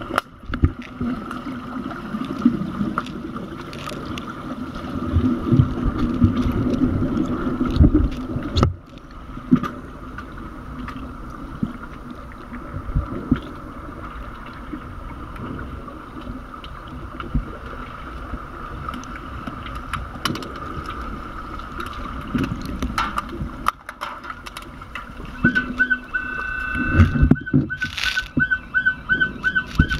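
Underwater pool sound during an underwater hockey game: a steady hum with many clicks and knocks from sticks and puck on the pool floor, and some bubbling. Near the end, a rapid pulsing beep comes in for about four seconds.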